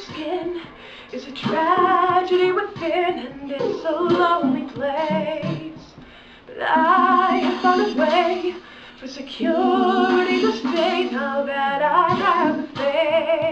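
A woman singing a slow original song in sung phrases with short breaks between them, with an added harmony vocal track layered under the lead.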